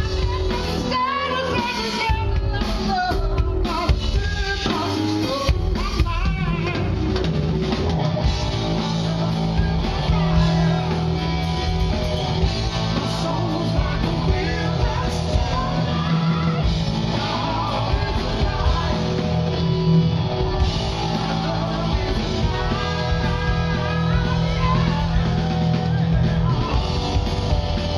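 Rock band playing live: electric guitar, electric bass and drum kit, with a lead vocal. A steady low note is held underneath from about eight seconds in until near the end.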